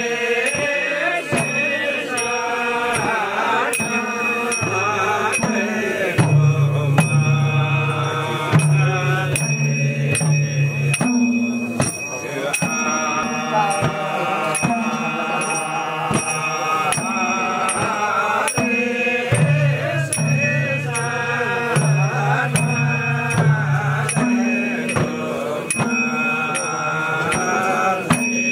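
Chanting voices over music, with a low sustained drone that changes pitch in steps and a steady beat.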